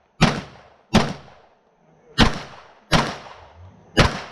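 Five 9mm pistol shots from a Glock 34, fired in pairs about three-quarters of a second apart, each with a short decaying echo. This is a match-speed string of fire on targets.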